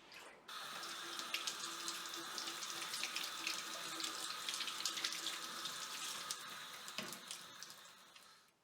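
Kitchen tap running into a sink, a steady rush of water that starts about half a second in and stops near the end.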